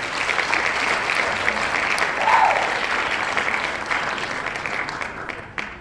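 A crowd applauding, the clapping fading out near the end.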